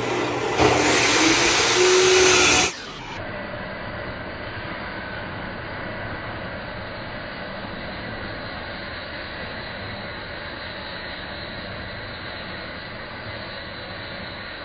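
Horizontal metal band saw running steadily as it cuts through square steel tubing, a constant mechanical hum with a few faint steady tones. For about the first three seconds it is covered by a much louder sound with a high whine that rises and then holds before cutting off suddenly.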